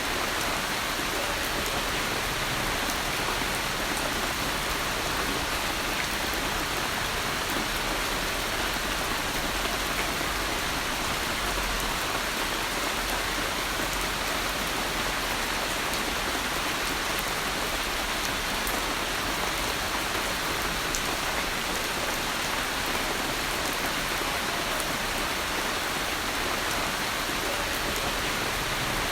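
Steady rain falling, a constant hiss of drops with scattered light ticks of individual drops landing.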